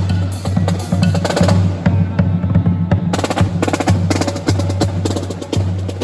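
Marching band percussion playing: rapid snare drum strokes and rolls over a steady low bass tone.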